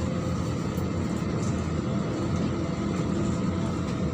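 Neman city bus under way: a steady drone of engine and road noise as heard from inside the bus.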